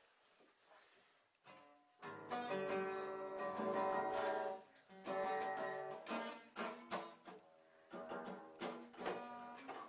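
Music: strummed acoustic guitar chords that come in about two seconds in after a quiet start, with new chords struck every second or two.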